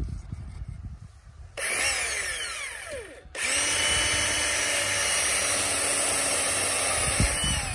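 Cordless drill boring a pilot hole for a screw into a wooden post. It gives a short burst about a second and a half in, then runs steadily for about four seconds and winds down near the end.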